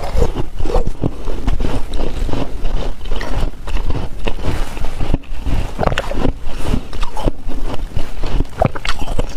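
Hard ice being crunched and chewed in the mouth: a dense, irregular run of sharp cracks and crunches as the ice breaks between the teeth.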